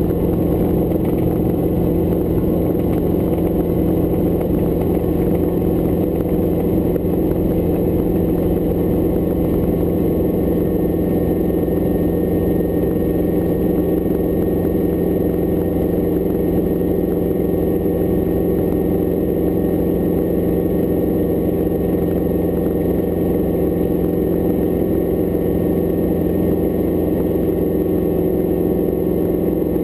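Hughes light helicopter in flight: its piston engine and rotor drone steadily with an even, unchanging pitch.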